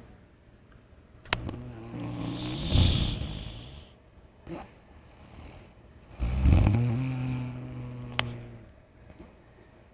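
A sleeping person snoring: two long, low-pitched snores about five seconds apart, each lasting two to three seconds.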